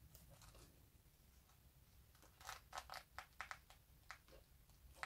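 Faint handling noise: a quick run of soft clicks and scrapes between about two and four seconds in, otherwise near silence.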